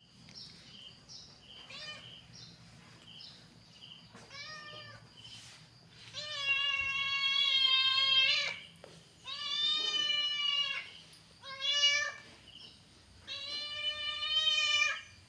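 Angry domestic cat yowling: a couple of short calls, then four loud, drawn-out yowls held at a steady pitch, the longest over two seconds.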